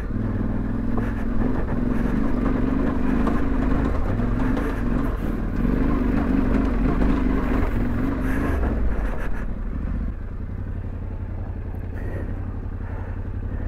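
Yamaha Ténéré 700's parallel-twin engine pulling on light, varying throttle up a rough cobbled climb, with some clatter from the bike over the stones. About ten seconds in, the engine note drops and settles lower and steadier.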